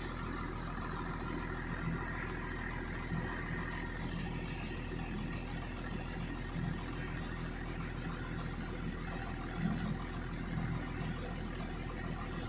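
A steady low engine hum at an even pitch.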